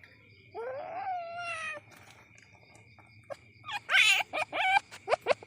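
Young Asian palm civet calling: one drawn-out squeal about half a second in, then a burst of short, harsh chattering calls near the end. A faint steady high tone runs underneath.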